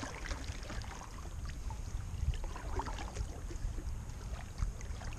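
Kayak paddle strokes in the water: scattered small splashes and drips from the blades, over a low steady rumble.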